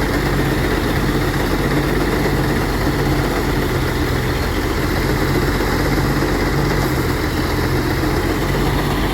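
An engine running steadily at an even pace, a continuous low hum.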